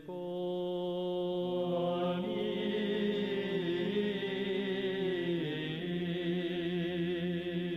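Men's choir singing Orthodox liturgical chant a cappella, holding a long chord on the final word 'веков' of 'и во веки веков', with lower voices joining about two seconds in.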